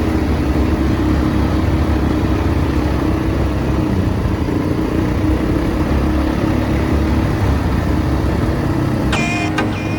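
ATV engine running steadily with a low rumble; a few pitched music notes come in about nine seconds in.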